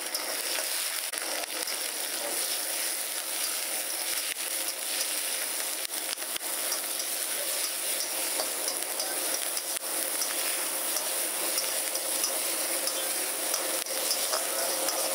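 Green chillies and sliced onion sizzling in hot oil in a wok, stirred with a metal spatula that clicks and scrapes against the pan now and then over the steady sizzle.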